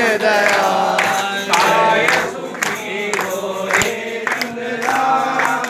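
A group of men singing a chant together, holding long notes, with a few sharp hits among the voices.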